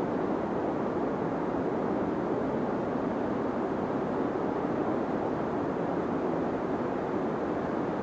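Deep white noise for sleep: a steady, even rush weighted toward the low end with little hiss on top, never changing.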